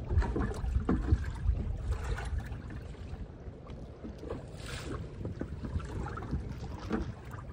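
Choppy water lapping and splashing against the side of a small wooden boat in heavy waves, over a constant low wind rumble on the microphone.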